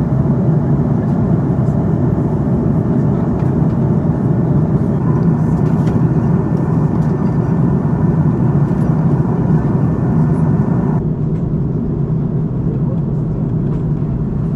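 Airbus A330-300 cabin noise in flight: a steady, loud, low roar of engines and airflow. The higher hiss drops away about eleven seconds in.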